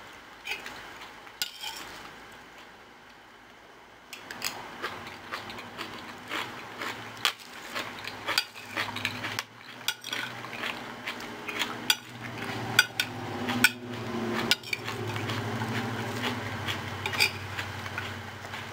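A fork and fingers tossing a leafy salad on a metal tray. Irregular clinks and scrapes of the fork against metal and foil, with rustling leaves, come sparse at first and turn busy after about four seconds. A low steady hum runs underneath in the second half.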